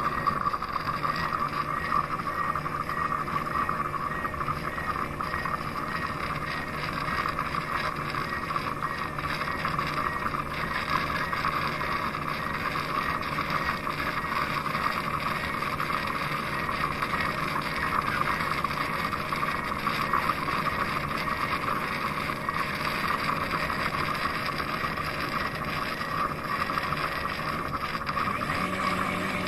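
Roomba Max 705 Combo AutoWash station running with a steady mechanical whir.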